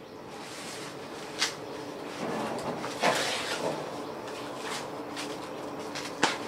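Large banana leaves being cut and handled on the ground. There are a few sharp clicks, plus a rustling, tearing swish about three seconds in.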